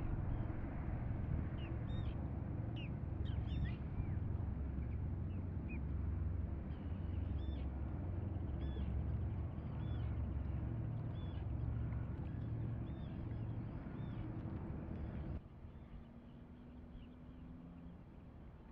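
Low, steady rumble of passing ships' engines and wind on the microphone, with birds calling over it in many short, high calls. About fifteen seconds in, the sound cuts to a quieter scene with a faint steady hum.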